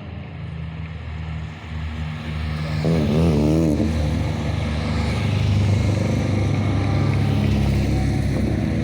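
Rally car engine revving hard as it drives up the road, growing louder about three seconds in with quick rises and falls in pitch, then holding loud.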